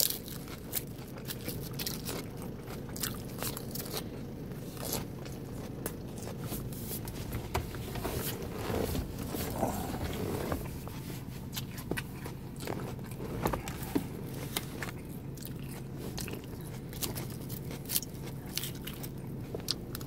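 Close-miked chewing of egg salad with lettuce, chicken and boiled egg: wet mouth clicks and smacks with crunching of lettuce, coming irregularly throughout. A steady low hum runs underneath.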